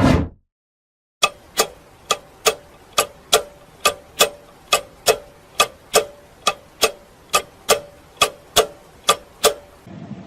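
A short whoosh, then after a moment of silence a clock ticking evenly about twice a second, some twenty ticks in all, stopping shortly before the end.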